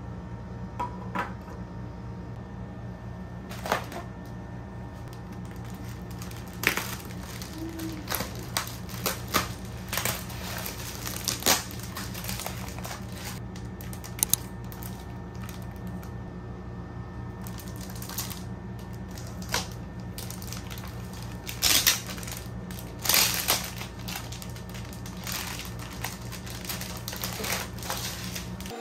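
Plastic packaging being handled: inflated air-cushion wrap and a clear plastic sleeve crinkle and crackle in irregular bursts, with scattered taps, as a spiral notebook binder is unpacked. A steady low hum runs underneath.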